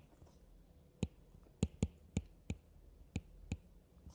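Stylus tapping on a tablet screen while handwriting, a series of about eight sharp, unevenly spaced clicks.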